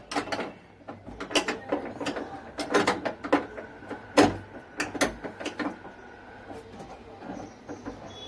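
Metal hand tool clicking, scraping and knocking against the gas hob's pipe fitting under the kitchen slab as the loose hose joint is worked on and tightened, with one louder knock about four seconds in.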